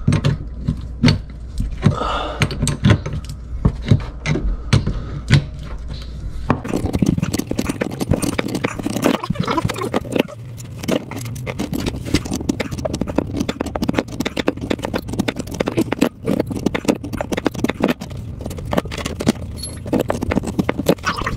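Metal adjustable wrench on a water-line compression nut at a shut-off valve: a long run of clicks, taps and scrapes as the wrench is fitted, turned and repositioned to unscrew the dishwasher supply line. The clicking gets denser about six seconds in.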